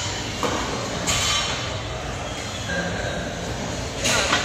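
Metal weight plates clanking a few times against a barbell as they are handled and loaded, over the steady din of a busy gym.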